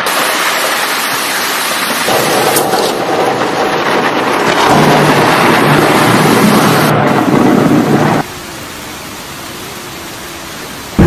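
Storm at sea from a film soundtrack: heavy rain and wind with rumbling thunder, a dense, even rush of noise that grows louder around the middle and then drops suddenly to a quieter steady rush about eight seconds in.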